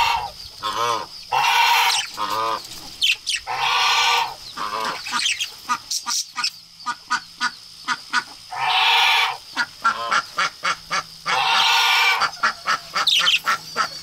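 Pet budgerigars chattering and warbling in quick clicking notes, broken by four loud, harsh, drawn-out calls.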